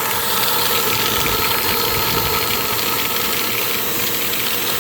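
Dirt Devil Power Max Pet vacuum cleaner's motor running steadily at full speed, a constant whirring hiss.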